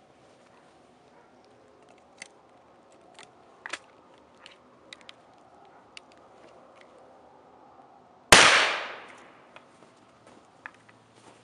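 A single shot from a 12-gauge short-barrelled double-barrel shotgun about eight seconds in: a sharp crack that dies away over about a second. It is the shot that bursts a bottle of yellow paint onto the glass. A few faint ticks and knocks come before it.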